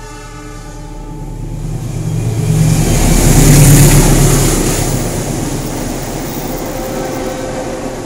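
A loud passing vehicle: a low rumble with a hiss that swells to a peak about three and a half seconds in, then fades and keeps going at a lower level.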